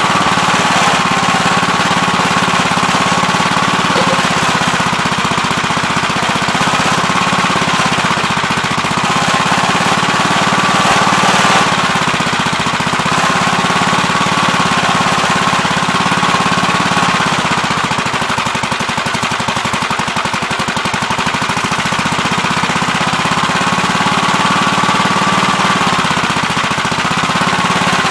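Gravely Terramite backhoe's engine running steadily while the backhoe digs, with a fast rattling beat and a high whine that rises and falls several times.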